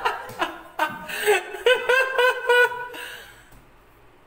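A woman sobbing loudly in short, high-pitched rhythmic bursts, dying away about three seconds in.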